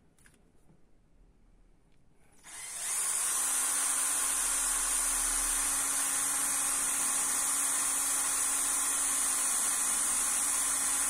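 Cordless drill spinning strands of copper wire inside a diesel fuel injector nozzle to scour out carbon, starting about two and a half seconds in and then running steadily at one speed.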